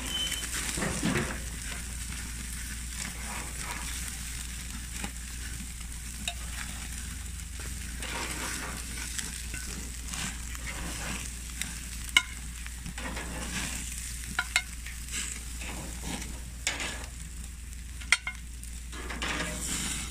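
Pork chops sizzling on barbecue grill grates over flaring flames, a steady frying hiss. Sharp clicks of metal tongs against the grates and glass baking dish come now and then as the chops are lifted off, the loudest about twelve and eighteen seconds in.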